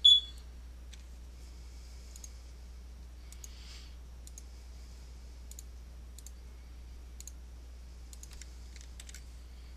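Computer mouse clicks while working a software dialog: one sharp click right at the start, then scattered faint clicks every second or so. A steady low electrical hum runs underneath.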